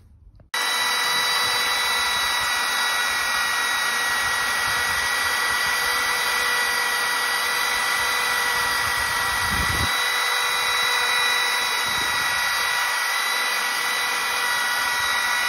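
Makita DRT50 brushless cordless palm router running at full speed with a steady high whine while it cuts a hinge recess into the edge of a wooden door. The whine comes in abruptly about half a second in.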